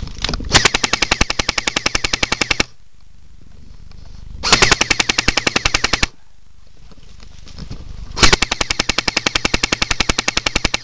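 Airsoft gun firing three full-auto bursts, about a dozen shots a second: a two-second burst, a shorter one, and a longer one still going at the end.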